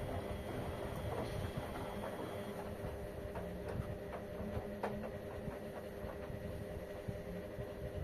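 LG front-loading washing machines running a wash: a steady motor hum over a low rumble, with scattered light clicks and knocks.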